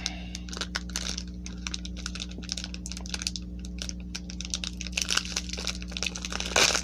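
Foil wrapper of a Pokémon Lost Thunder booster pack crinkling and crackling in a rapid patter of small clicks as fingers work at it to tear it open, with a louder crinkle near the end.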